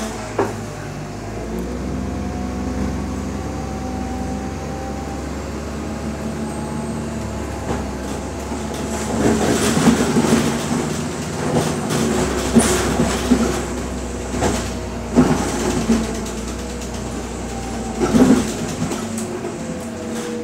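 Inside a BredaMenarinibus Monocar 231 CU natural-gas city bus under way: the engine's steady hum, with the body and doors rattling. From about nine seconds in there are several sharp clunks and bursts of louder rattling.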